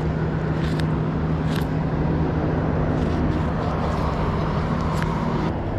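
A steady low engine hum over a noisy rumbling background, stopping shortly before the end, with a few faint clicks.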